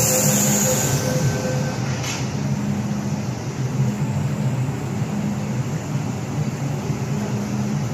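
MTR M-train running between stations, heard inside the car: a steady rumble and hum. A high hiss in the first second and a tonal whine fade out within the first two seconds.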